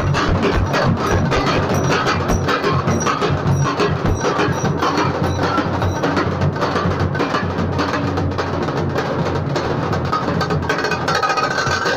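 Nashik dhol ensemble playing: several large double-headed dhol drums beaten with sticks, with a tasha, in loud, dense, continuous drumming.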